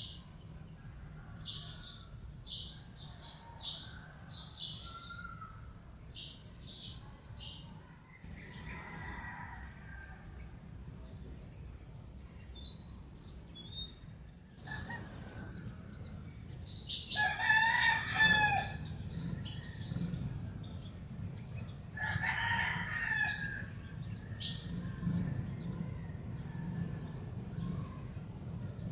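Small birds giving quick series of short, high chirps, then a rooster crowing twice in the second half, each crow lasting a second or two. A steady low rumble runs underneath.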